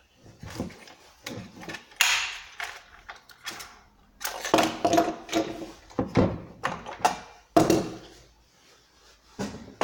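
Irregular knocks, clicks and short scrapes of chainsaw parts being handled and fitted together during assembly, with no engine running.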